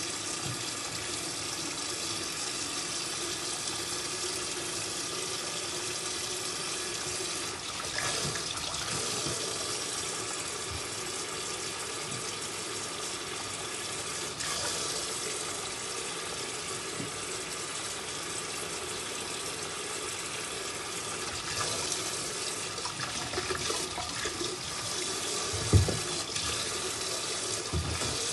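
Kitchen tap running steadily into a sink, with a single knock a couple of seconds before the end.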